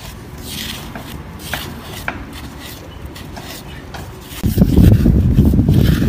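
Hands digging and scraping in wet, muddy sand, with small clicks and swishes as clumps are scooped aside. About four and a half seconds in, a loud low rumble sets in and covers the rest.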